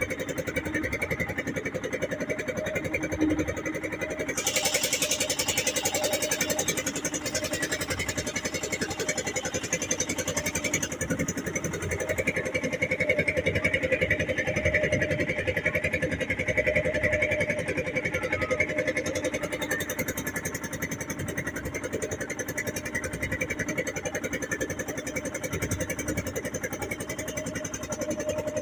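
Steady running noise of a motor vehicle on the move, engine and road noise together, with a stretch of added hiss from about four to eleven seconds in.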